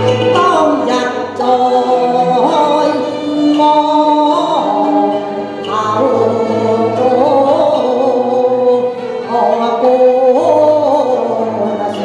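A woman singing a Chinese song over instrumental accompaniment, in a male–female stage duet.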